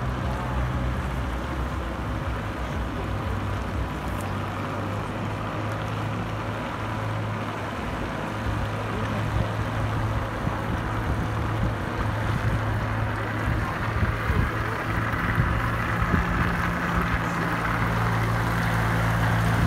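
Ice resurfacing machine running as it drives across the rink, a steady engine hum that grows louder in the last few seconds as it comes close.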